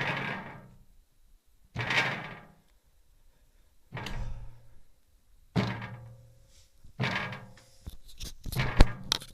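Heavy knocks or thuds against a window, five of them about a second and a half to two seconds apart, each followed by a rattling ring that dies away. Near the end they give way to a quick flurry of sharper clicks and knocks.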